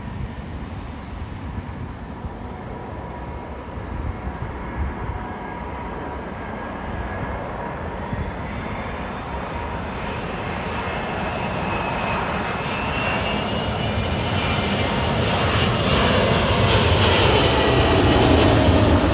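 Jet airliner coming in to land, its engines droning and whining and growing steadily louder as it approaches, loudest near the end.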